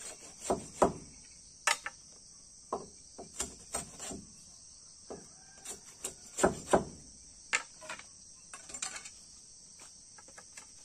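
Bolo knife chopping and shaving a piece of bamboo: irregular sharp knocks, the strongest about a second in and about six and a half seconds in. A steady high chorus of crickets and other insects runs underneath.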